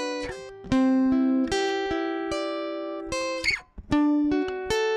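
Guitar playing a slow melody in single picked notes, each ringing out and fading, heard through a Momix Joyo portable audio interface. About three and a half seconds in, a short scrape along the strings and a brief pause come before the notes resume.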